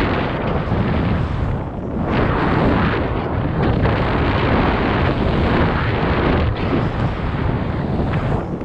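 Wind buffeting the skier's camera microphone, mixed with skis hissing and swishing through about ten inches of fresh powder. The noise rises and falls in surges with the turns.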